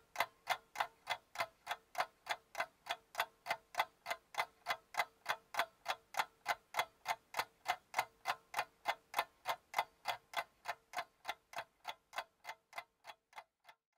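Clock-like ticking, about three to four sharp ticks a second, over a faint steady tone. Near the end the ticks grow fainter and further apart, then stop.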